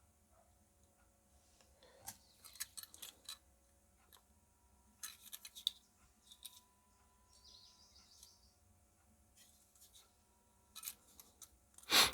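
Small clicks and scrapes of a battery wall clock's movement parts being handled and pressed together, as gears that won't seat are pushed into the housing. They come in scattered clusters, with a single sharper click just before the end.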